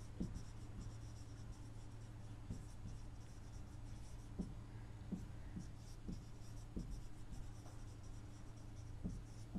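Marker pen writing on a whiteboard: faint, irregular short strokes and taps as the letters are formed, over a steady low hum.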